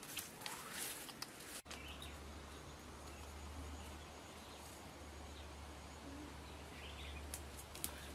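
Quiet forest background with a few faint bird chirps and a steady low hum that starts abruptly about a second and a half in. Before that, rustling and light knocks of footsteps through undergrowth.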